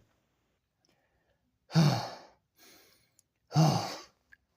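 A man's voice sighing heavily twice, breathy exhales about two seconds apart, each fading out: catching his breath after straining at a heavy lift.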